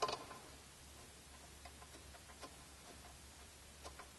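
Faint small metal clicks and ticks from a 1/4-inch Allen bit being handled and seated in a small hand driver, with a sharper click right at the start.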